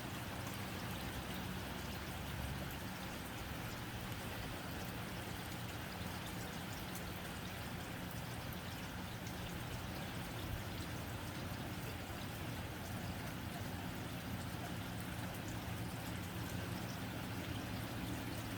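Rain falling steadily on a tin roof: an even, unbroken wash of noise dotted with fine ticks of single drops striking the metal.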